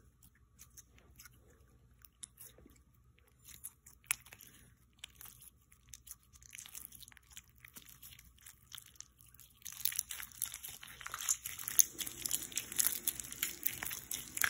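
Clear glittery Fairy Putty slime, with hair gel being worked into it, stretched and squished by hand. Scattered sticky clicks at first, then dense, louder wet crackling from about ten seconds in.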